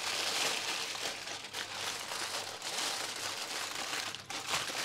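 Aluminium foil crinkling and crackling as hands fold it over and press it down into a tightly sealed, airtight parcel.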